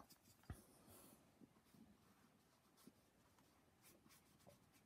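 Near silence with faint sounds of a watercolour brush picking up paint from a pan paint box and dabbing onto paper, with a soft knock about half a second in and light scratchy taps after.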